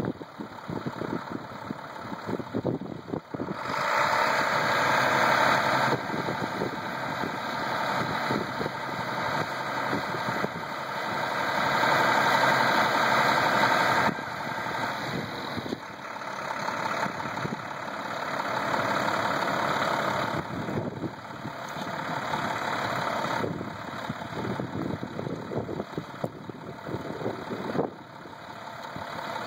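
Truck engine of a Lift-A-Loft TMX bridge inspection vehicle running. It steps up to a louder, brighter run about four seconds in, drops back sharply about ten seconds later, then swells and eases several more times.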